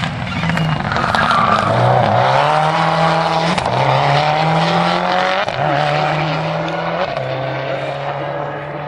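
Subaru Impreza WRX STI rally car's turbocharged flat-four engine accelerating hard past and away, its note climbing and dropping back at each of about four gear changes, then fading as it pulls away.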